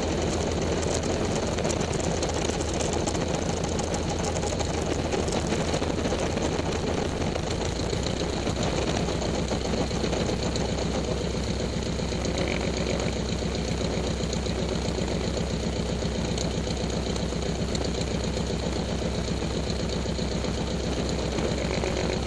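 Lancair 360's four-cylinder Lycoming engine idling with the propeller turning while the aircraft taxis after landing: a steady, even beat of firing pulses.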